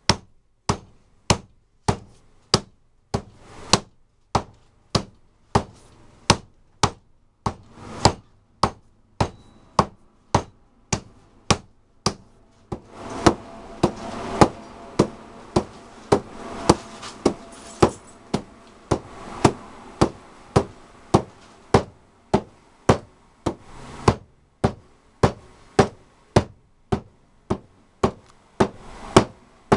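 Hand, fingertip and fist strikes on a leather pillow makiwara resting on a wooden desk: sharp thuds in a steady rhythm of about three every two seconds, the hand-conditioning drill for the hands and fingers. A steady rushing noise sits under the strikes for about ten seconds in the middle.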